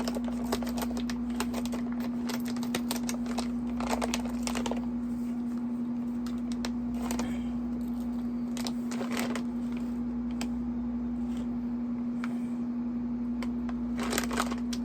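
Scissors cutting open a bag of potato chips, with the plastic bag crinkling in irregular clicks and rustles. A steady air-conditioner hum runs underneath.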